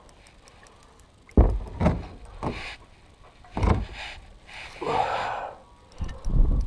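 Irregular dull knocks and bumps around a kayak as the angler handles his rod. The loudest comes about a second and a half in, with a short rushing noise about five seconds in and a cluster of thumps near the end.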